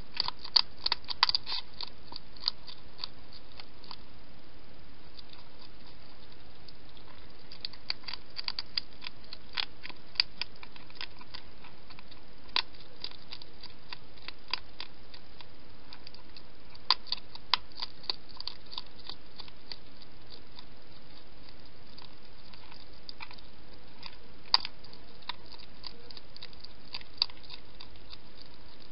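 Wild hedgehog crunching and chewing food: irregular sharp crunches that come in clusters every few seconds over a steady hiss.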